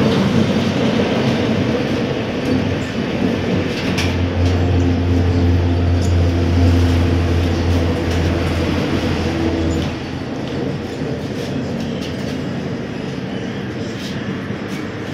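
Cabin noise of a ZiU-682KR trolleybus pulling in toward the kerb, with a steady low hum that cuts off suddenly about ten seconds in, and a couple of sharp clicks.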